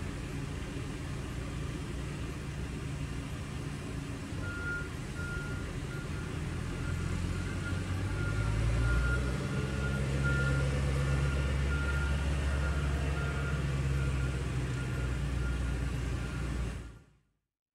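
Diesel work vehicles running, a tractor and truck passing, the low engine rumble growing louder about halfway through, with a reversing alarm beeping steadily from about four seconds in. The sound fades out near the end.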